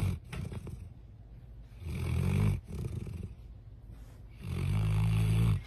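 A dog snoring, in deep snores that sound like a human's. Two long, loud snores, one near the middle and one near the end, with quieter breathing between, and the tail of another at the very start.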